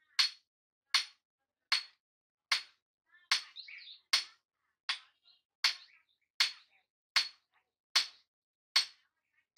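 Hand hammer striking a red-hot steel chopper blade on an anvil in steady forging blows, a little more than one a second, about a dozen in all. Each blow has a short metallic ring.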